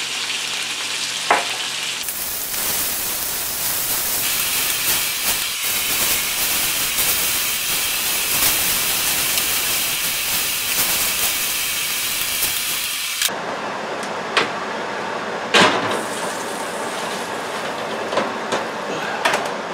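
Chicken thighs sizzling in ghee in a cast iron skillet, with clicks of metal tongs turning the pieces. Near the end the sizzle drops and a few sharp clanks follow as a baking sheet of chicken goes onto the oven rack.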